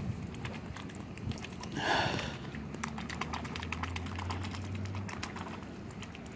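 A mute swan dabbling its bill at the water's surface: dense, rapid little clicks and slurps, with one short louder burst about two seconds in.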